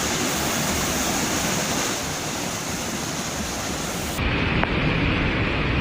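Steady rushing noise of fast-flowing floodwater. About four seconds in it changes abruptly to a duller, thinner rush of the same kind.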